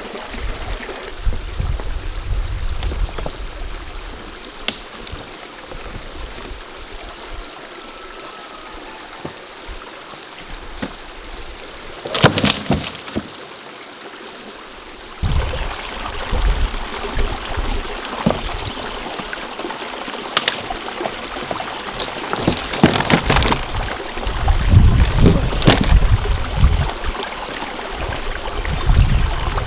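Mountain stream water running steadily, with irregular splashes and sloshing. The splashing is loudest about halfway through and again a few seconds before the end.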